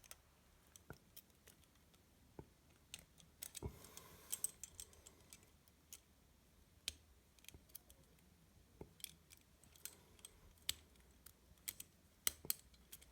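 Faint, irregular small metallic clicks and scratches of a bent-wire tensioner working in the keyhole of IK70 handcuffs while trying to pick the double lock.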